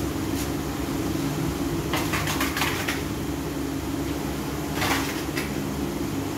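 Cement mortar being scraped and spread across a concrete floor: short scratchy scrapes, a cluster about two seconds in and another near the end, over a steady low hum.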